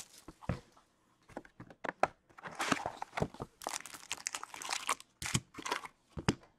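Cellophane shrink-wrap crinkling and tearing as it is stripped off a cardboard box of trading cards, then the cardboard box being handled and its lid opened. It comes in irregular crackly bursts and sharp clicks with short pauses between.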